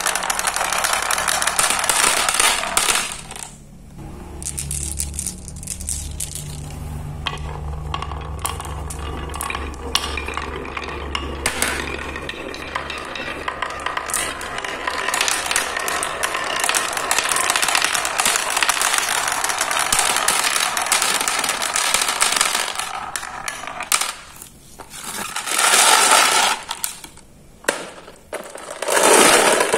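Many marbles rolling and clattering down a wooden marble run, knocking against wooden pegs and track walls in a continuous rattle of small clicks, with a couple of brief lulls near the end.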